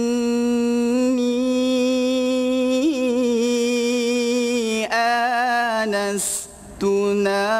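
A solo male voice in melodic Quranic recitation (tilawah, mujawwad style). It holds one long steady note for about five seconds, then sings a short wavering phrase, takes a quick breath just after six seconds in, and starts the next note.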